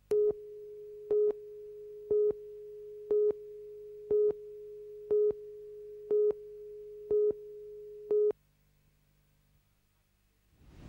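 Videotape countdown leader tone: a steady mid-pitched tone with a louder beep every second, nine beeps in all, cutting off about eight seconds in.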